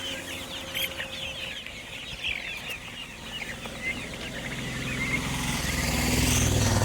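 Chickens clucking and chirping with quick short calls, while from about halfway through an engine hum grows steadily louder, as of a motor vehicle drawing near.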